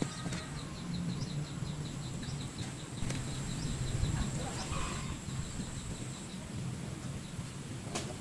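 A bird chirping a short high note over and over, about four or five times a second, thinning out after a few seconds, with a thin steady high whine that stops about six seconds in and a low steady hum underneath.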